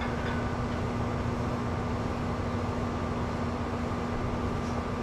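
Steady mechanical hum: a low, even drone under a hiss, with no knocks or changes.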